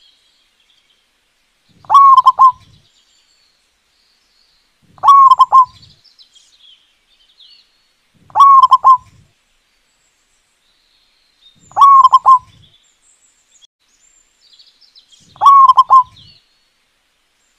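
Zebra dove (perkutut) cooing: five short phrases of three quick notes each, repeated evenly about every three and a half seconds. Faint high chirps come between the phrases.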